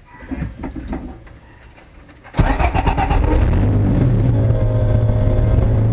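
Honda Del Sol engine, newly fitted with 2200cc fuel injectors, being started: some brief clatter, then it catches suddenly about two and a half seconds in and settles into a steady idle.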